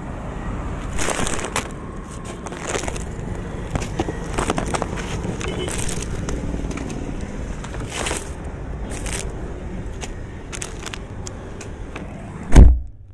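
Handling noise of a phone camera being moved and set down low on the ground: scattered rustles, scrapes and knocks over steady outdoor background noise, with a louder knock near the end.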